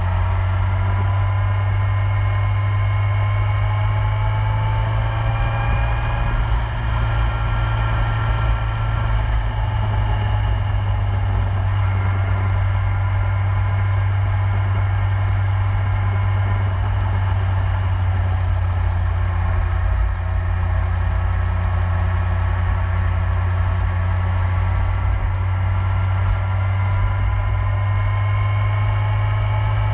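2008 Yamaha YZF-R1's inline-four engine running steadily at highway cruising speed, its note rising slightly in the first few seconds and again near the end. Heavy wind rush on the bike-mounted camera runs under it.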